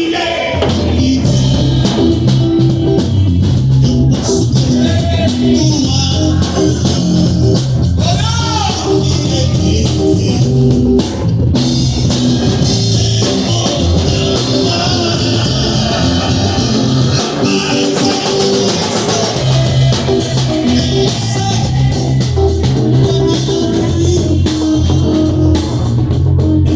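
A band playing a song with guitar, bass and drum kit, with some singing.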